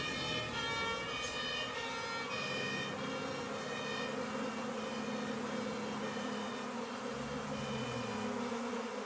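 A honeybee swarm buzzing in a steady low hum, with an emergency siren sounding over it for the first few seconds and fading away.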